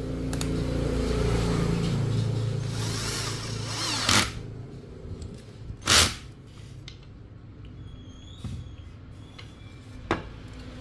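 Cordless electric screwdriver running steadily, driving a screw through a piece of bone into a wooden board. It stops about four seconds in, followed by two sharp knocks and a lighter knock near the end.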